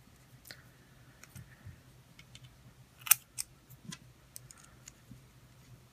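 A scattering of faint clicks and taps as small screws and metal standoffs are handled and screwed onto a carbon-fibre drone frame plate, the loudest a pair about three seconds in.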